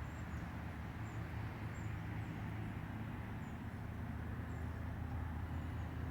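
A steady low hum, with several low tones held level throughout, and faint short high-pitched chirps recurring every half second or so.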